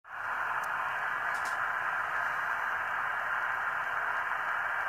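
Icom IC-R71A receiver hissing on 27.455 MHz upper sideband: steady static through the receiver's narrow voice filter, starting abruptly, with no station's voice in it.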